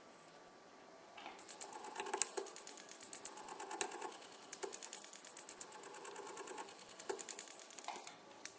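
Endodontic handpiece running in reciprocating mode, driving a VDW Reciproc file into a resin canal block: a rapid mechanical chatter with a thin high whine. It starts about a second in and stops near the end, when the file is withdrawn.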